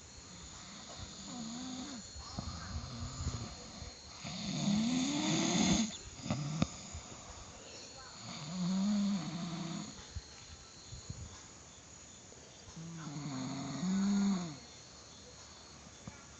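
Snoring: rough, pitched snores on the breath, repeating about every four seconds, the loudest about five seconds in.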